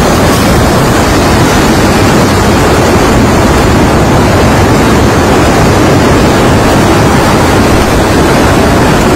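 Loud, steady cyclone wind blowing and buffeting the microphone.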